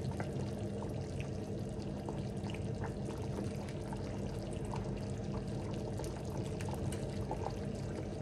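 Thick peanut butter soup simmering in a pot, bubbling with many small pops over a steady low hum.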